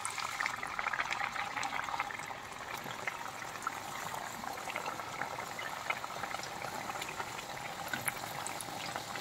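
Hot oil sizzling and bubbling around bajra (pearl-millet) mathri as they deep-fry in a kadhai: a steady crackling hiss, with the oil freshly hot enough that the dough bubbles vigorously.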